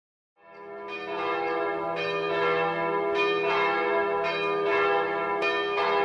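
Church bells ringing, starting about half a second in: fresh strikes come roughly once a second over a continuous ring of many overlapping tones.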